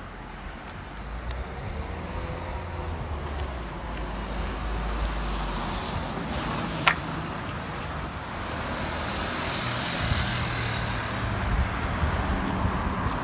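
Road traffic: a car going by, its engine and tyre noise swelling gradually louder. There is one sharp click about halfway through.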